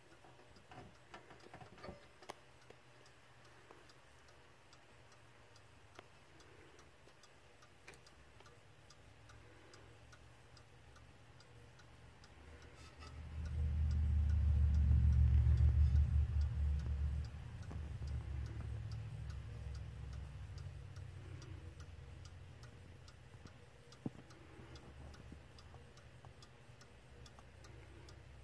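West German mechanical bracket clock ticking steadily with its pendulum swinging. A few louder knocks come in the first couple of seconds. About halfway through, a low rumble swells up, becomes the loudest sound, and fades away over several seconds.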